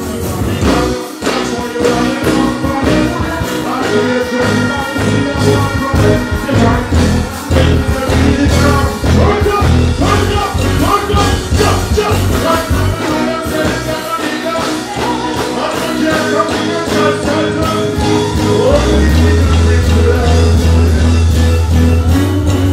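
Live reggae band playing loudly, with a singer's voice over the music. Near the end a deep bass note holds steadily for several seconds.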